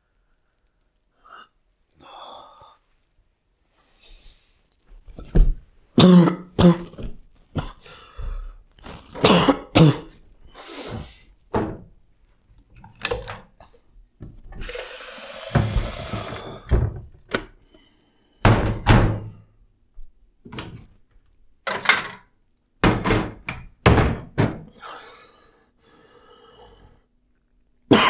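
A man coughing and clearing his throat in repeated harsh fits. About halfway through, a tap runs for a couple of seconds, filling a vessel with a slowly rising pitch.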